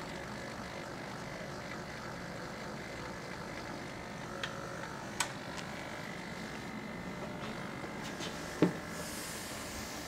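Hobby servo motors of a small robotic arm whining in short spells as the arm moves, over a steady mechanical hum. A few sharp clicks come about four and five seconds in, and one louder knock near the end.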